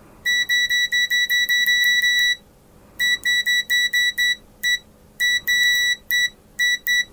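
Venlab VM-600A multimeter's continuity buzzer beeping: a high, steady tone that starts and stops in irregular bursts, some short and some held for a second or two, as the test probes make and break contact.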